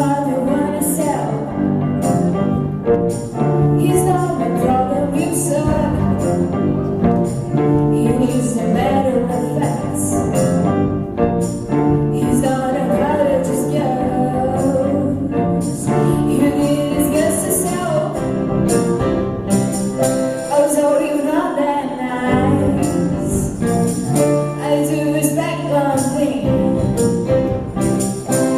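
Acoustic band performance: a singing voice over instrumental accompaniment with a steady beat.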